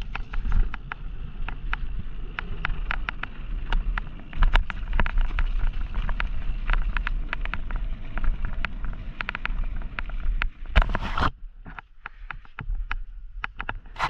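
Downhill mountain bike rolling fast over a rough dirt trail: a steady low tyre rumble with frequent rattling clicks and knocks from the bike over bumps. About eleven seconds in there is a louder rushing burst, and after it the rattling thins out.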